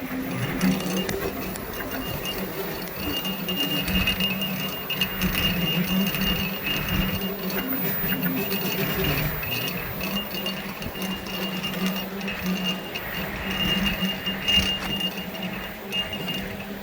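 Central Machinery benchtop milling machine, converted to CNC, running: a steady motor hum with a higher whine that comes and goes as the machine moves.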